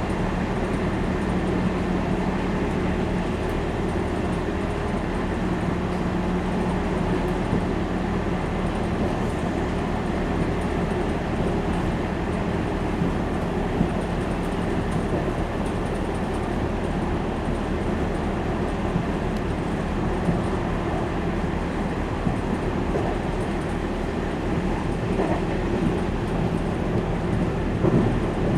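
Class 480 S-Bahn electric multiple unit running at speed, heard from inside the passenger car: a steady rolling rumble of wheels on rail under a steady low hum, with a few brief knocks, the largest near the end.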